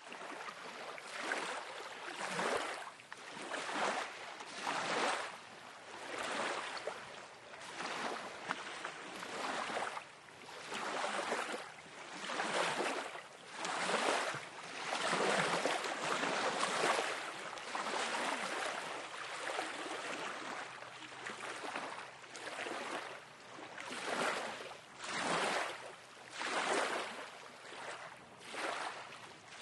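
Small waves washing up on a lake shoreline, a steady wash of water that swells and falls back with each wave, about one wave every second or so.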